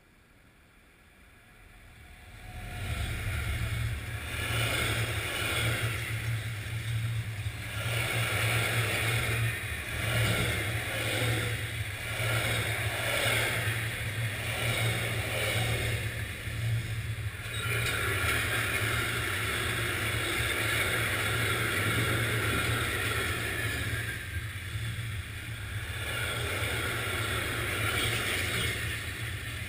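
Freight train passing close by, hauled by a Class 185 electric locomotive: the noise swells sharply about two seconds in as the train arrives. After that comes the steady low rumble and clatter of its covered freight wagons rolling over the rails.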